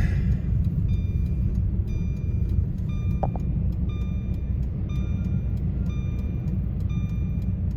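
A car's engine and drivetrain heard from inside the cabin as a steady low rumble while the car creeps forward in a snowy column. Faint short high pips repeat about once a second over it.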